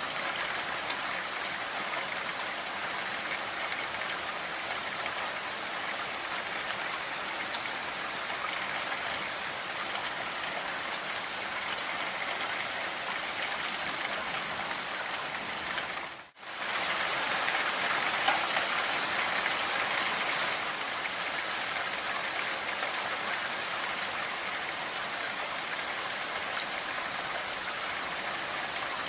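Steady rain falling, an even hiss of many drops. It cuts out for a split second a little over halfway through, then resumes.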